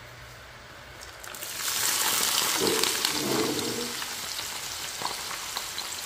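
Garlic cloves and chilies dropped into hot oil in a frying pan: a loud sizzle starts suddenly about a second and a half in, then eases to a steady fry with scattered pops.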